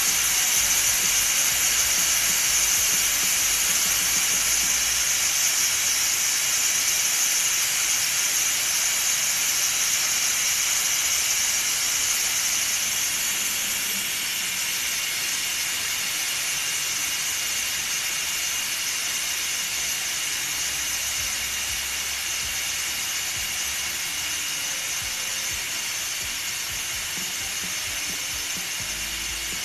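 Steam hissing steadily out of a Chefking electric pressure cooker's release valve while the release button on the lid is held down, venting the pressure left after cooking so the lid can be opened. The high hiss slowly grows quieter as the pressure drops.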